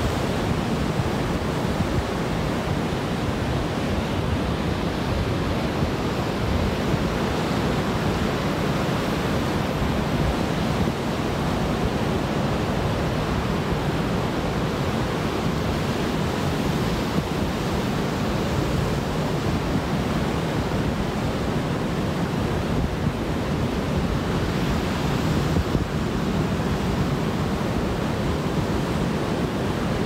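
Atlantic surf breaking and washing up a sandy beach: a steady rushing roar of waves with no pauses.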